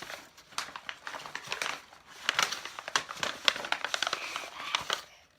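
Crinkly packaging in a mailed parcel being rummaged through and crumpled by hand, in irregular crackling rustles that are thickest in the middle and die away near the end.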